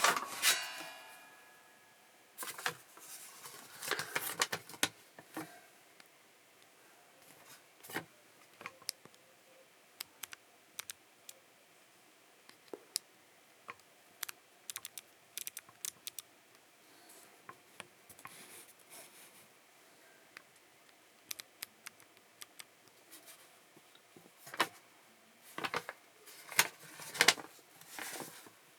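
Scattered small clicks, taps and scrapes of hands handling metal machine parts and paper, with a run of louder knocks near the end.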